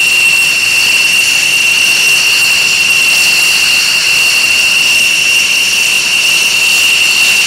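F-16 fighter's jet engine running steadily on the ground: a loud, steady high-pitched whine over an even rush of jet noise.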